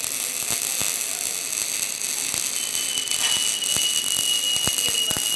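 Electric arc welding: the arc sizzles and crackles steadily with scattered sharp clicks. A steady high-pitched tone joins about halfway through.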